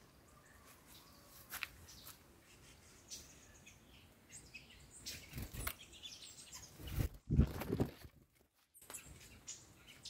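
Faint chirps of small songbirds, with a few louder low thumps and a wing flutter between about five and eight seconds in as a green-headed tanager lands on and leaves a hanging fruit feeder tray.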